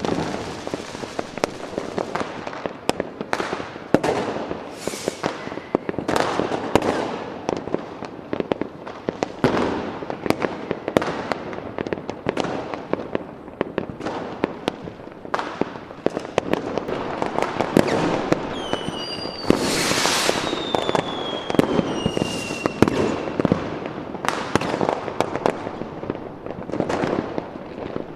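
Fireworks going off continuously: a dense run of sharp bangs and crackling. About two-thirds of the way through, a whistle falls slowly in pitch for several seconds over the bangs.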